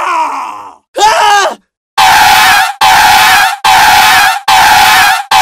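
Stock sound effects played in turn: a wavering, scream-like vocal groan ends just before a second in, a short falling cry follows, then from about two seconds a harsh burst of noise with a steady tone repeats, about one a second.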